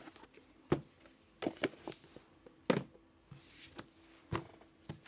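Tarot card decks and a cardboard card box being handled and set down on a tabletop: a scatter of short taps and knocks, the loudest a little under three seconds in, with a brief soft slide of cards a bit later.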